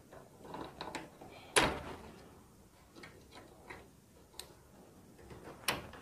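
Scattered small clicks and taps of hands working on the wiring inside an opened microwave oven, with one sharper click about one and a half seconds in.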